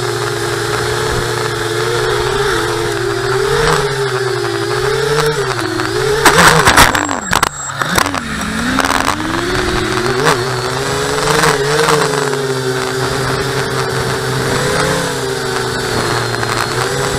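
Mini FPV quadcopter's four ZMR1804 2400kv brushless motors spinning 5-inch three-blade props, recorded by the onboard camera, whining with a pitch that rises and falls with the throttle. About six seconds in the pitch drops and sweeps sharply, with a few loud short bursts.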